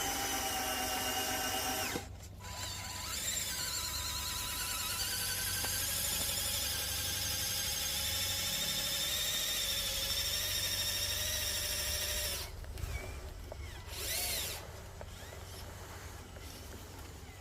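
Small electric motors of radio-controlled construction machines whining, with high tones that waver and glide in pitch as the machines work. The sound stops abruptly and restarts a few times.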